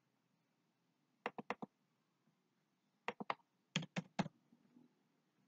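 Computer keyboard typing: a quick run of four keystrokes just over a second in, then two clusters of three keystrokes about three and four seconds in.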